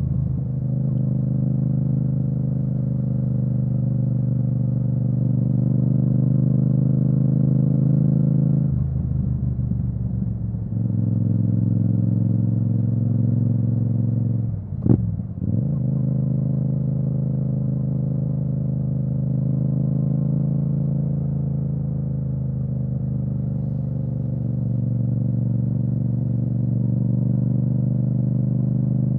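Yamaha MT-07's parallel-twin engine through an Akrapovic exhaust, running under steady throttle on the road. About nine seconds in the note drops for a couple of seconds as the throttle eases, and near fifteen seconds it dips briefly with a single sharp pop before settling back to a steady drone.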